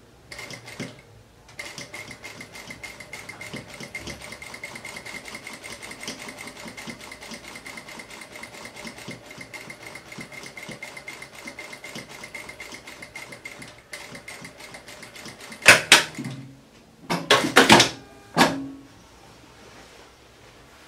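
Industrial straight-stitch sewing machine stitching through layered fabric, with a steady motor whine and a fast even run of stitches. It makes a brief first burst, then runs for about twelve seconds and stops. A few loud knocks and fabric-handling noises come near the end.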